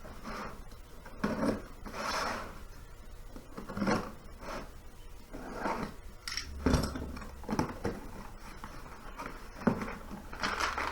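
A cardboard shipping box being opened by hand: irregular scraping, rubbing and rustling of cardboard and packing, with a sharp knock a little past the middle.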